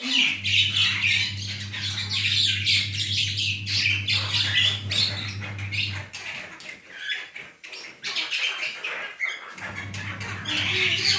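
Jalak hitam (black starling) calling in a rapid, unbroken run of harsh squawks and chirps, a lure call meant to draw other starlings to answer. A steady low hum runs under it for the first half and again near the end.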